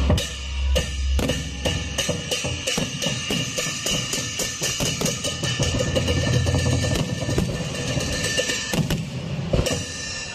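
Music with a driving drum-kit beat: bass drum and snare with fast, dense hits and a heavy bass.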